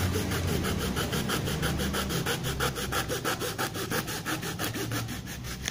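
A hand saw cutting through an old plastic washboard in quick, even back-and-forth strokes, about five a second.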